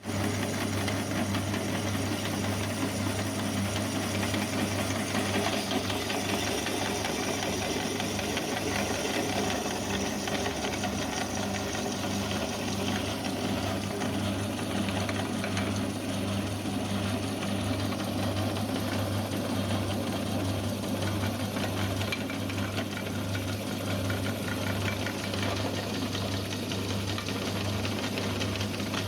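Electric meat grinder running steadily with a constant motor hum and a busy mechanical rattle, as it grinds bars of soap.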